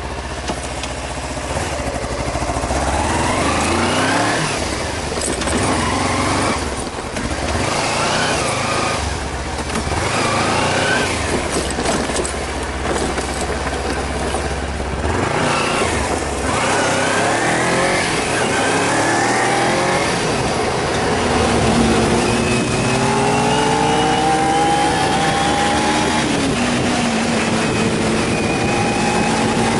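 Kawasaki Ninja 250's parallel-twin engine heard from on the bike, revving up through the gears in a series of rising pulls, each broken by a shift, as it accelerates away. From about twenty seconds in it runs at a steady, even pitch while cruising.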